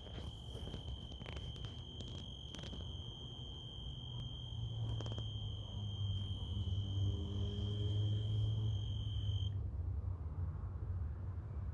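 A steady, high-pitched single-note trill coming from a tree, held unbroken and cutting off suddenly near the end, in the manner of a calling insect such as a tree cricket. A low rumble sits underneath.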